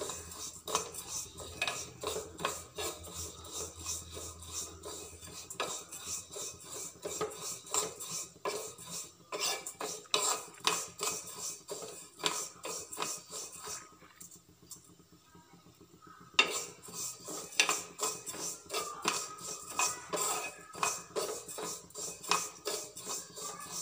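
A small spoon scraping and clinking against a metal karahi in quick, repeated strokes as chutki semai (hand-made vermicelli) is stirred while frying in ghee. The stirring stops for about two seconds past the middle, then starts again.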